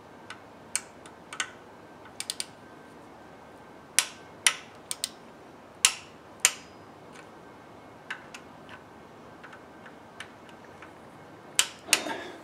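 Click-type torque wrench ratcheting and clicking as bolts on a new oil pump are tightened to 8 N·m. Irregular sharp metallic clicks, the loudest clustered in the middle and near the end.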